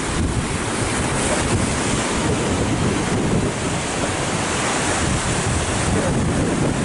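Heavy ocean waves breaking and churning against a rocky shore.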